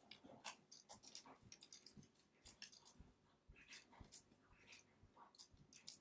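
Faint, irregular clicks and ticks, several a second, from pet lovebirds pecking and picking with their beaks at the window sill and glass.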